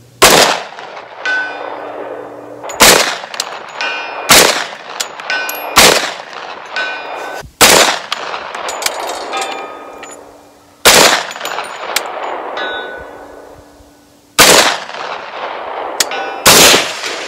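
10mm Auto gunshots from a pistol and a CMMG Banshee carbine: about eight loud shots, irregularly spaced one to three and a half seconds apart, each with a short echo. Between shots come fainter clangs and ringing tones of steel targets being hit downrange.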